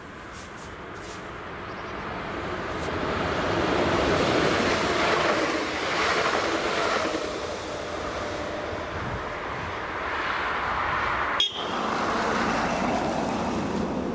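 Electric multiple-unit passenger train passing by, its running noise swelling to its loudest about four seconds in and then slowly fading. An abrupt cut near the end leads into another steady stretch of passing-vehicle noise.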